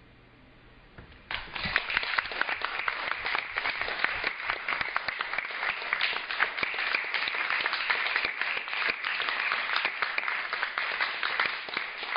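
Audience applauding, breaking out suddenly about a second in after a quiet pause and continuing as dense, steady clapping.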